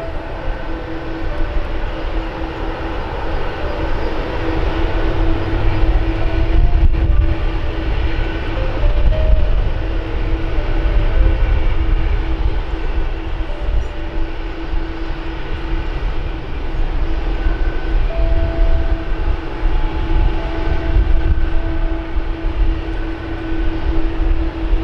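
Jet aircraft idling at an airport: a steady hum over a constant low rumble.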